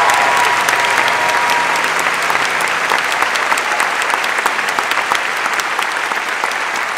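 A large audience applauding, a dense steady clapping that slowly tapers off. The last held notes of music fade out in the first few seconds.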